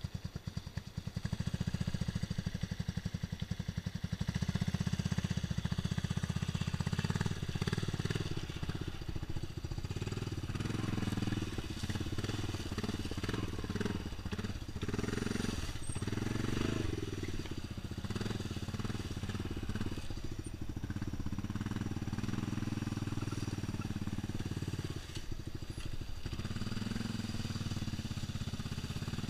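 ATV engine running under throttle, growing louder in the first couple of seconds as the quad pulls out of shallow water. It then carries on along a woodland trail with dry leaves and sticks crackling under the tyres.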